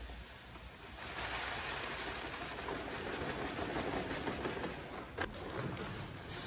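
Sorghum seed pouring from a 25 kg sack into the hopper of a Sulky seed drill: a steady rushing hiss that starts about a second in. There is a sharp click about five seconds in and a brief crackle at the very end.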